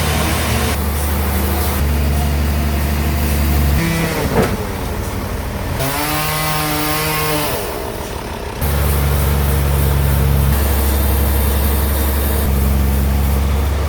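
Sawmill band saw and its drive engine running while sawing a large log: a steady low engine hum, with a whining sawing sound rising and falling in the middle. The sound changes abruptly several times.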